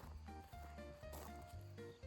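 Background music: a melody of clear notes stepping downward over a steady bass line.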